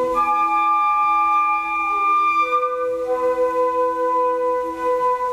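Flute quartet (two flutes, alto flute and bass flute) with a B-flat clarinet playing slow held chords, the harmony moving to a new chord at the start and again about halfway through.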